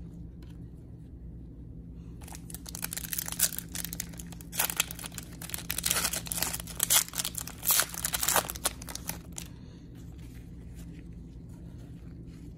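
A plastic trading card pack wrapper being torn open and crinkled by gloved hands. The crackling starts about two seconds in and stops a little after nine seconds.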